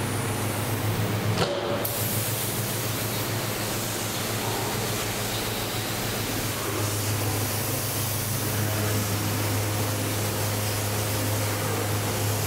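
Steady hiss of a compressed-air paint spray gun, with a low steady machine hum beneath it.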